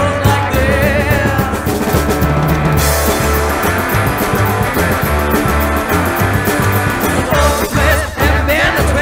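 Rockabilly band playing live: upright bass, electric guitars and drums with a steady driving beat. A woman's voice sings with vibrato at the start and again near the end, with the band carrying on alone between.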